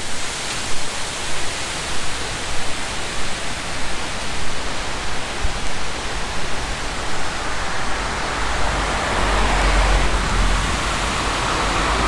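Steady rushing of a mountain river in a rocky gorge, the Vésubie running below the storm-damaged bridge. A low rumble builds over the last few seconds.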